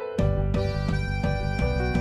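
Background music: a full band with bass and a steady beat comes in just after the start, taking over from a quieter keyboard part.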